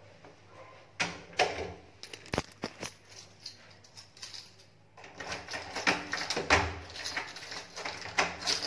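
Handling noises: irregular clicks, small knocks and rustling, a few at about one second in and a busier run from about five seconds in.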